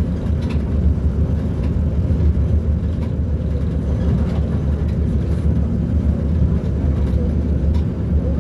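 Diesel engine of a Mercedes-Benz O-500U city bus running steadily: a low, even drone with no change in pitch.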